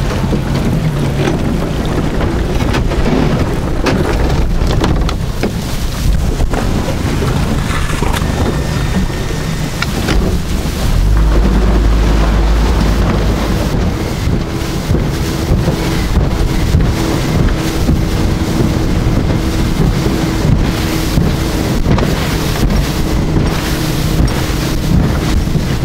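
Yamaha 60 outboard motor running under way, with wind on the microphone. A steady engine tone sets in about halfway through, and water splashes and knocks against the hull as it crosses choppy water near the end.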